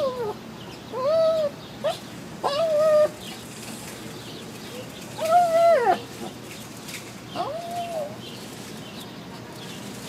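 Shih Tzu whining in a string of high, arching cries, about five in all, the longest and loudest about five seconds in. The whines are a dog's eager crying to get at a cat it can see behind a window.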